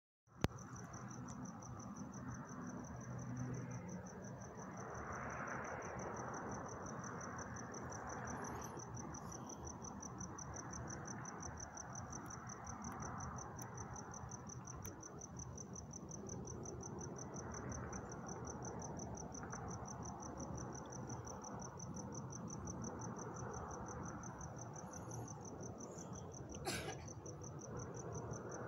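A cricket chirping in a steady, even, high-pitched rhythm over a faint low hush of background noise, with one sharp click near the end.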